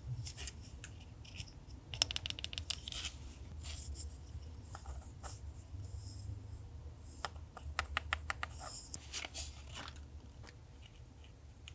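Paper craft materials being handled: rustling and scratching of paper, with two runs of quick crisp clicks, one about two seconds in and one near the end.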